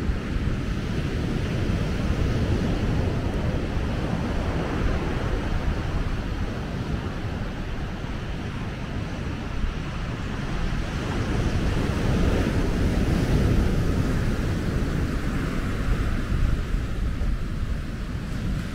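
Ocean surf breaking on a beach, a steady rushing noise that swells about two-thirds of the way through, with wind buffeting the microphone.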